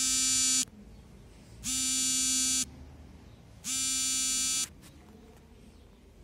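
A buzzer sounding three times, each buzz about a second long with a steady pitch, spaced about two seconds apart.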